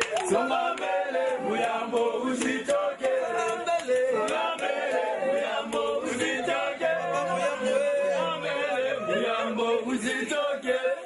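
A group of men chanting and singing together without instruments, many voices overlapping.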